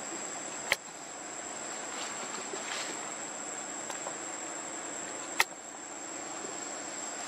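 Steady high-pitched drone of insects with a low hum beneath, broken by two sharp clicks, one about a second in and one about five seconds in.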